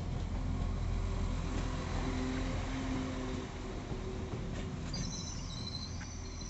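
Northern Class 195 diesel multiple unit running alongside the platform with a low rumble and engine hum, slowly getting quieter. A high squeal from the wheels or brakes starts about five seconds in.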